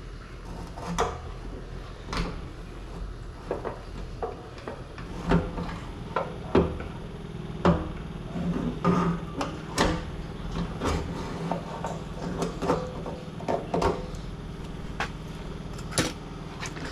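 Irregular clicks, knocks and light clatter of hard parts being handled: the fuel pump and sending-unit assembly being worked loose and lifted out of a pickup's fuel tank.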